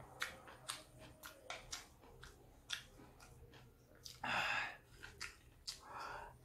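A person eating instant noodles: small wet clicks and smacks of chewing throughout, a loud slurp of noodles about four seconds in, and a shorter one near the end.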